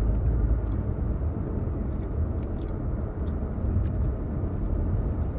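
Steady low rumble of a car, with scattered faint clicks of chewing and eating.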